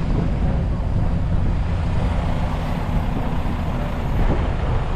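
Steady low rumble of heavy vehicles such as semi trucks, with no single event standing out.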